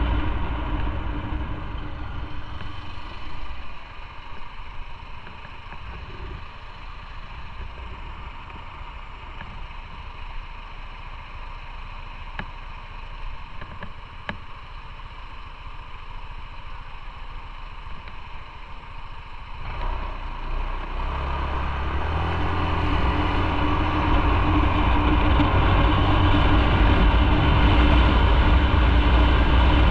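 Motorcycle engine and riding noise heard from on the bike. The sound fades over the first few seconds as the bike slows and stays quieter for a long stretch. About twenty seconds in, the engine picks up suddenly and grows louder as the bike accelerates away.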